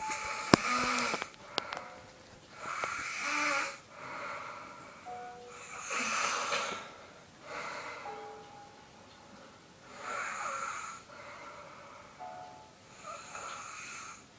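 Snoring: slow, wheezy breaths in and out, a loud one about every three to four seconds with weaker ones between. A few sharp clicks come in the first couple of seconds.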